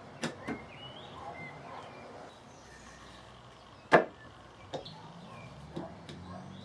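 A small wooden box with a drawer being handled: a few short wooden clicks and knocks, the loudest about four seconds in as the drawer is pushed out from behind. Faint bird chirps in the background.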